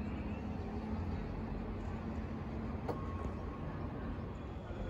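Steady low rumble of city traffic heard from a distance, with a faint hum that fades partway through and a single sharp click about three seconds in.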